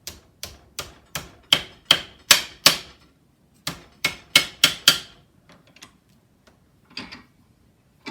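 Hammer striking sheet metal, shaping the bend of a metal radiator shroud: a run of eight even blows, about three a second and getting louder, then after a short pause five more. A lighter knock or rattle follows near the end.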